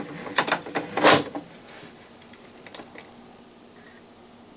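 CD tray of a Grundig FineArts CD11 CD player closing, with several clicks and one loud clunk about a second in, then a couple of faint ticks near three seconds. The tray mechanism is faulty: a mechanical fault that the owner calls a "mechanical disaster".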